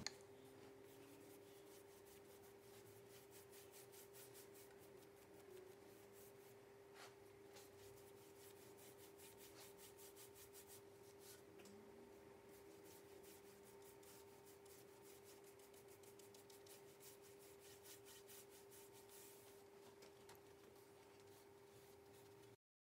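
Faint paintbrush strokes rubbing paint onto a wooden furniture surface, many soft repeated brushing sounds over a steady hum. The sound cuts off just before the end.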